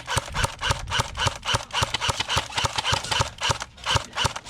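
Airsoft gun firing a rapid, steady string of shots, about six or seven a second, laying down covering fire, with a short break near the end.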